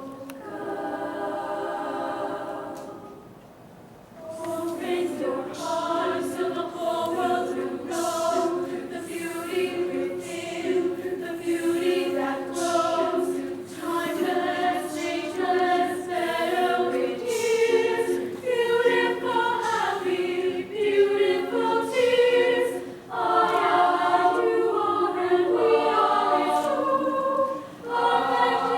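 High-school show choir singing in harmony. The voices hold a chord for about three seconds and dip briefly, then go into rhythmic, note-by-note singing.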